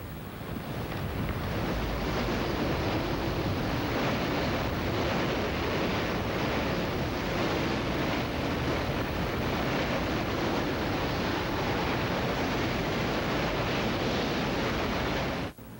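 Strong wind from a nearby tornado rushing steadily over the microphone. It builds over the first second or so and cuts off abruptly just before the end.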